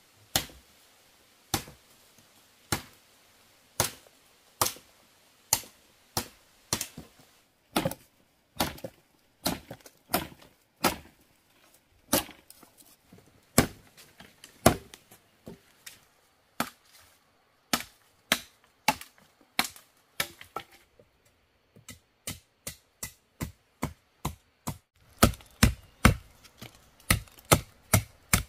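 A blade chopping wood in a steady series of sharp blows. The blows come about one a second at first, then quicker, two or three a second, and heaviest over the last few seconds.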